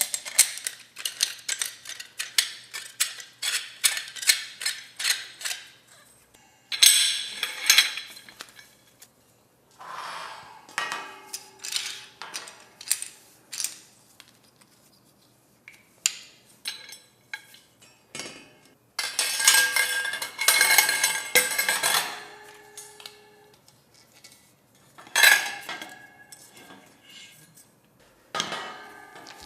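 Metal wire shelving being assembled: the metal poles and wire shelf parts clink and knock against each other in quick runs of small hits. The runs come in bursts with short pauses between, and some hits leave a brief ringing tone.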